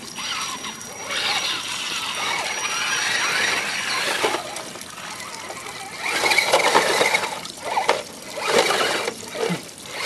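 Electric motors and gear drives of RC scale crawler trucks whining in bursts as they crawl over roots and rocks, over the steady sound of water trickling down the bank.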